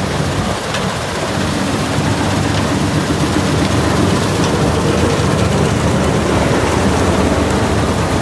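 Vishal combine harvester running steadily: a heavy engine hum under a dense mechanical noise, growing a little louder after about two seconds.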